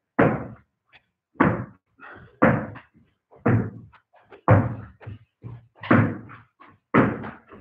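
A ball bounced off the floor and caught again, over and over: a sharp thud about once a second, each with a short room echo, with lighter knocks in between.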